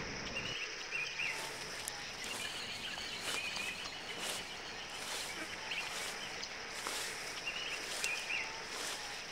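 Outdoor ambience: a steady hiss with faint bird chirps now and then.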